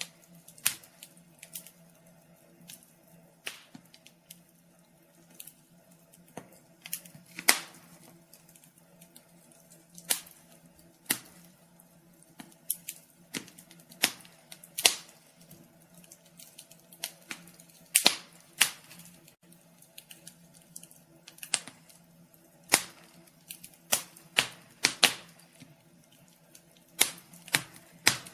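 Wood fire in a fireplace crackling, with irregular sharp pops, a few loud ones and many small ticks between, over a faint steady low hum.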